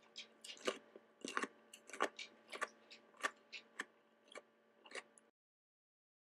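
Close-up chewing of a mouthful of crisp raw radish: sharp wet crunches about three a second, stopping abruptly about five seconds in.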